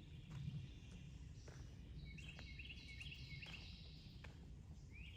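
Faint swamp ambience: a bird calls a quick series of short, high notes in the middle, over a low, steady rumble with a few faint taps.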